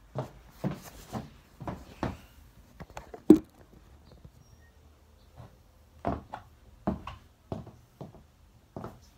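Irregular thuds and clacks of steps in new high-heeled Pleaser shoes being tried out, the loudest about a third of the way in.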